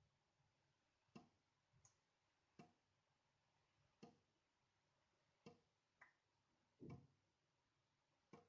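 Tap dripping into a sink: a single drop lands about every one and a half seconds in a steady, slightly varying rhythm, with a smaller extra drip falling between them twice.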